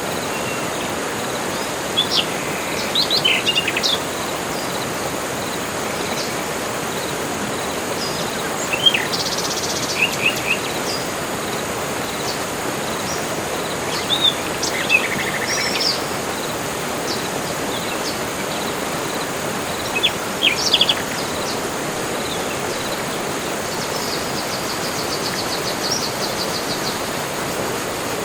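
Several birds calling in a tropical forest over a steady background hiss: short chirps and whistled notes in clusters every few seconds, and a buzzing trill near the end.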